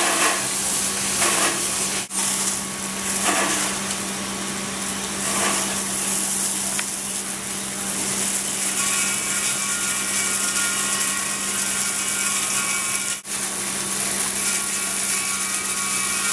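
Steady hissing rush of firefighters' water fog spray and propane escaping and burning from the tank's failed pressure relief valve, with a steady low hum underneath. It breaks off briefly twice, about two seconds in and again near the end.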